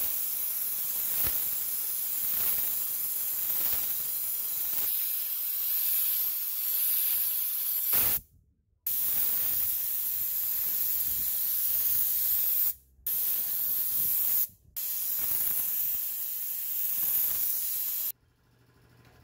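Compressed-air spray gun with a cup hissing steadily as it sprays glue onto wood paneling. It stops three times when the trigger is let go: once for about half a second and twice very briefly. It stops shortly before the end.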